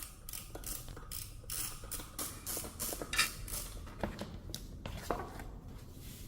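Repeated short scraping or clicking strokes of hand work on metal parts, about three or four a second and uneven, over a low hum.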